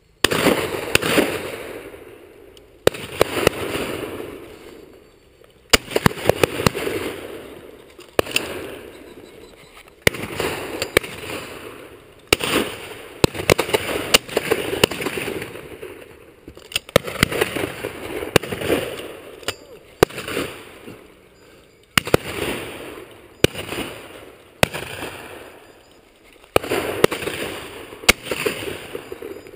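Shotguns firing over and over at pheasants flying overhead, a shot every second or two. Each sharp bang is followed by a long rolling echo.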